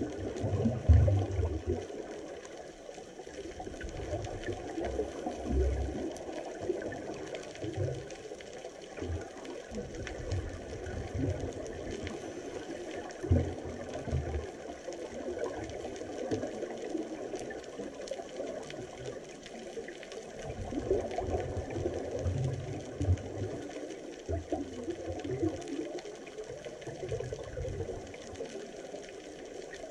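Underwater ambience picked up by a camera in a waterproof housing: a steady muffled hiss of water, with irregular low thumps of water moving against the housing.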